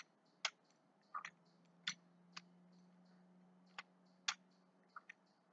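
Faint sharp clicks at irregular intervals, about one or two a second, over a faint low steady hum, with a faint high chirp repeating about three times a second.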